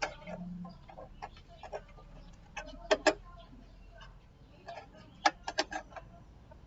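Scattered sharp clicks and knocks from electric fan parts being handled and fitted during a repair: a pair about three seconds in, then a quick run of four or five about two seconds later.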